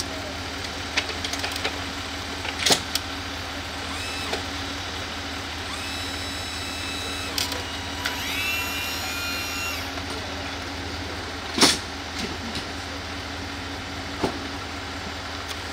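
Emergency vehicles idling: a steady low engine hum, broken by a few sharp knocks and clanks as a stretcher is loaded into an ambulance. Near the middle, a whine rises and then holds for about two seconds.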